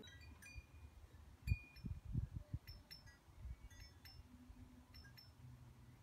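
Scattered high, clear chiming pings, with low thumps of wind buffeting the microphone, the strongest about a second and a half in.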